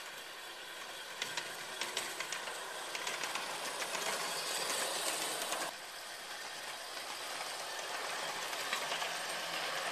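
Ride-on scale GE23 locomotive running past on miniature railway track: a steady engine sound from its installed Phoenix sound system, with a run of sharp clicks from the wheels on the track between about one and three seconds in. The sound drops suddenly a little past halfway.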